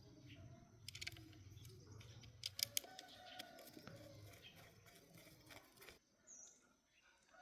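Quiet background with scattered sharp clicks and taps, the loudest pair about two and a half seconds in, and a brief high chirp near the end.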